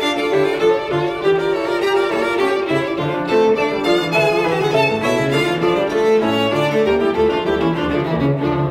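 Background music: a violin melody over a lower bowed-string line, in a classical style. A deeper bass line comes in about six to seven seconds in.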